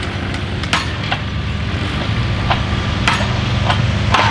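Engine of fence-building machinery running steadily, with scattered sharp clinks and knocks over it.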